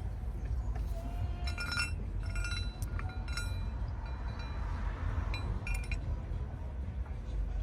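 Metal tools or parts clinking against each other, about four short ringing clinks, over a steady low rumble.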